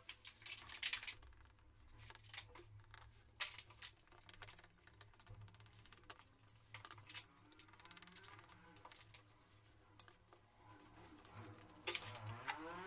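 Knife cutting through a crisp-crusted baked pizza in a metal pan: irregular crunching and crackling with sharp clicks of the blade against the pan. Near the end a wavering pitched sound starts.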